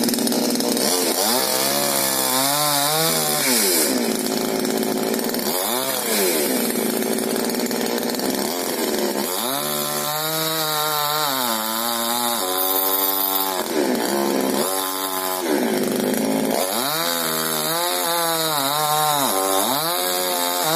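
GoodLuck GL4500C 45 cc two-stroke chainsaw running under throttle while cutting through a maple log, its engine speed rising and falling again and again as it is revved up and bogs in the cut.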